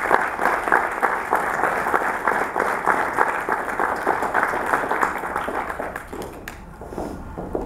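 Audience applauding with many hands clapping, the applause dying away about six seconds in.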